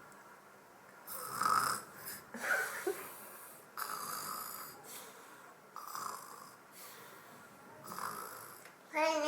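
A baby snorting through his nose: about five short snorts, a second or two apart.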